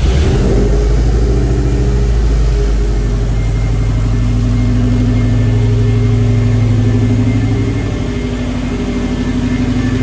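Subaru Impreza STI's turbocharged flat-four boxer engine catching on the starter and running steadily, easing slightly lower about eight seconds in.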